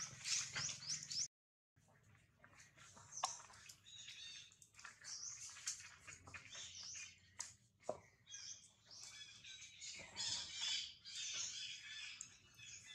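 High-pitched animal chirps and squeaks, short and repeated, mixed with a few sharp ticks; the sound drops out completely for a moment about a second in.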